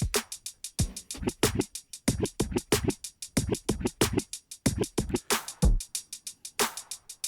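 Programmed hip hop drum loop playing back from a sample library: fast, steady hi-hat ticks over deep kicks that fall in pitch.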